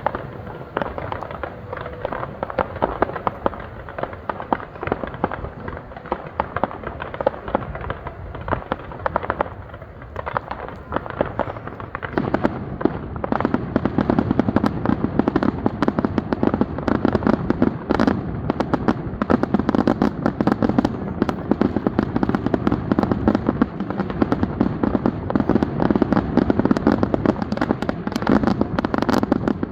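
Fireworks display: a continuous barrage of bangs and crackles, growing denser and louder about twelve seconds in.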